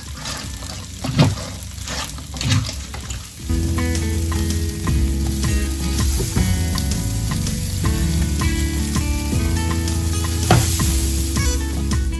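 Food being stirred and tossed in a sizzling frying pan, with scraping strokes. About three and a half seconds in, background music starts and continues.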